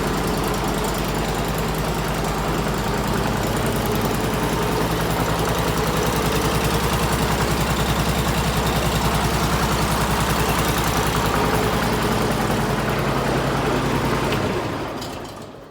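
Honda GX690 V-twin engine in a Bobcat M500 skid steer running at a steady idle with an even, rhythmic exhaust pulse. The exhaust goes through a heat-wrapped header, a flexible pipe and a muffler relocated low, which makes it a lot quieter. The engine sound stops near the end.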